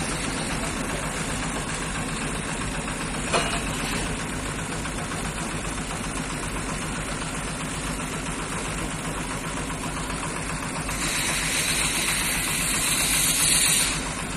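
Heavy machinery engine running steadily under load while a crane hoists a precast concrete girder. There is a sharp click about three seconds in, and a loud hiss from about eleven seconds in that cuts off suddenly near the end.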